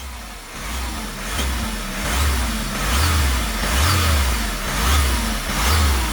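Hyundai Sonata 1.7 diesel engine revved in short repeated blips, about one a second, each rise bringing a short whistling hiss. The whistle is the sign of a cracked exhaust manifold on the engine's one-piece turbo-manifold assembly, with exhaust escaping through the narrow crack.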